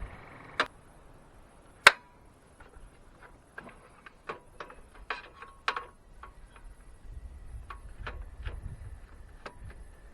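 Scattered sharp clicks and light knocks of table saw parts being adjusted and locked in place, the loudest about two seconds in. Low wind rumble on the microphone grows in the second half.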